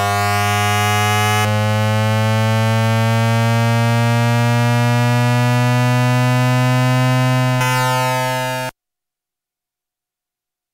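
Hanshin 5500 series VVVF inverter and traction motor noise picked up on an AM radio, mixed with an added tone at the inverter's fundamental frequency. It is a stack of steady electronic tones climbing slowly in pitch as the train gathers speed. It stops abruptly about two seconds before the end.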